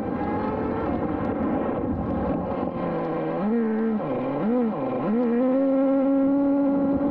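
Traxxas Jato 3.3's TRX 3.3 two-stroke nitro engine running at speed, heard from a camera mounted on the car. About halfway through, its revs dip and rise twice as the throttle is lifted and reapplied, then climb steadily as the car accelerates.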